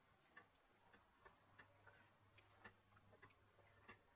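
Very faint, irregular soft ticks and taps, a few a second, from a wooden spatula stirring thick creamy stew in a stone-coated pot.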